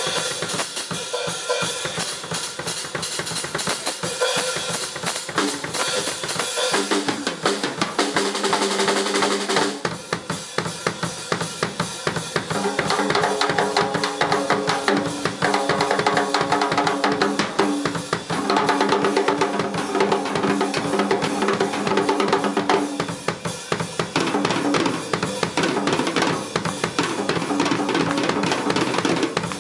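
Live drum kit solo: rapid, dense strokes across snare, toms and bass drum, with rolls, some of the drums ringing on at steady pitches.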